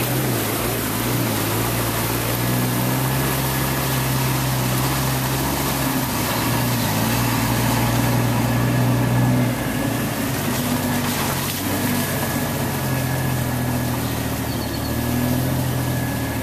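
Jeep Wrangler TJ engine running at low trail speed while its tyres push through standing floodwater and mud, with a steady splashing and swishing of water; the splashing thins out for a couple of seconds midway, and the engine note dips about ten seconds in.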